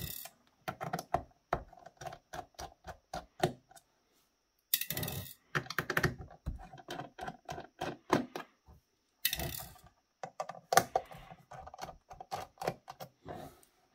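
Small screwdriver backing Phillips screws out of a router's aluminium shield can: runs of quick, light clicks and taps of metal on metal. Twice, about five and nine seconds in, comes a louder, short rattle.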